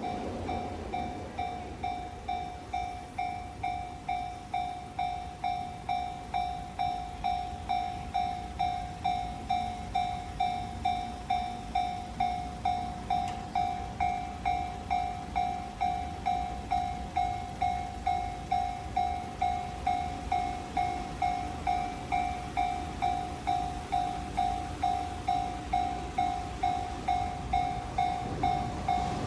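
Japanese level-crossing warning bell ringing, a single ding repeated just under twice a second, the crossing's signal that a train is approaching. A low rumble fades away in the first couple of seconds.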